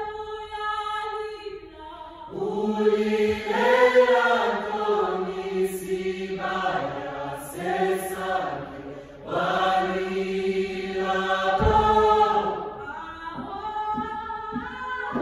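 A choir singing in several parts, holding long chords that shift from one to the next, with brief breaths between phrases.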